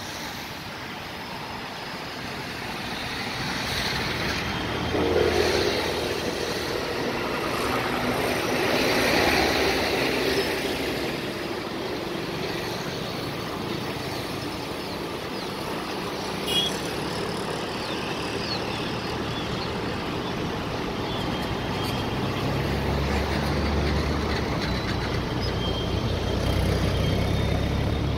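Freight train of BCNA covered wagons behind a WAG5 electric locomotive rolling past, a steady rumble of wheels on rails with one sharp click about two-thirds of the way through and a deeper rumble near the end.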